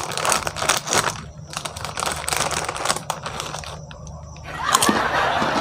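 Plastic Lay's chip packet crinkling and crackling as it is torn open by hand. About four and a half seconds in, a louder, denser noise takes over.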